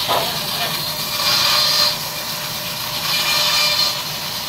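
Large sawmill band saw cutting lengthwise through a log, a steady hissing rasp that grows louder twice as the log is pushed through the blade.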